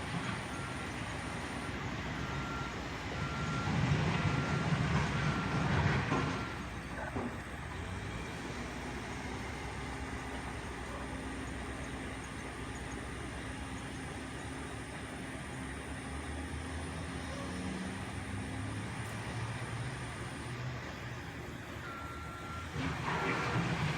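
Backhoe's diesel engine running as it works gravel, with its reversing alarm sounding a string of evenly spaced single-pitch beeps for the first six seconds or so and starting again near the end. The engine swells for a few seconds about four seconds in.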